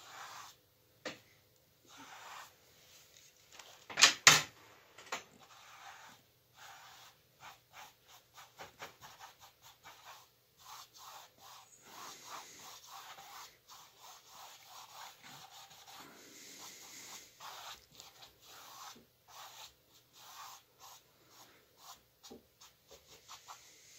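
Paintbrush rubbing thin blue oil paint, thinned with mineral spirits, onto stretched canvas in a long run of short, irregular scrubbing strokes. Two sharp knocks sound close together about four seconds in.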